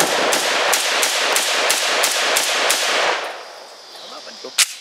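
Beretta BM59 rifle in 7.62 NATO fired rapidly in semi-auto: about nine sharp shots, roughly three a second, stopping about three seconds in. One more sharp crack comes near the end.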